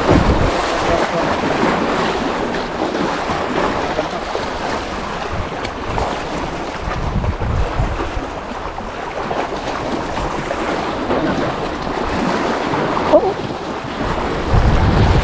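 Small sea waves washing and splashing over shoreline rocks, with wind buffeting the microphone in gusts.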